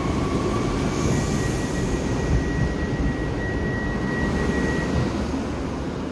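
Electric commuter train standing at the platform with its equipment running: a steady rush and hum, with a thin high steady tone through the middle few seconds.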